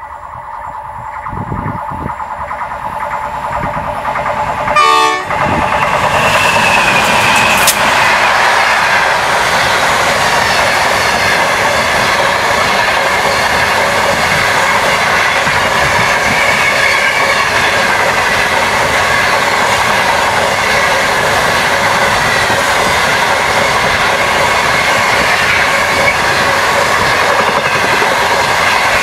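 The Ghan passenger train passing close by. Steady tones build as the locomotives approach, with a brief loud burst about five seconds in. Then the long rake of stainless-steel carriages rolls past with a loud, even rumble and clatter of wheels on rail.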